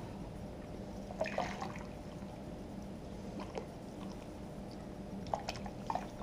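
Distilled water pouring from a plastic gallon jug through a funnel into a motorcycle radiator, a faint steady trickle, with a few light clicks about a second in and again near the end.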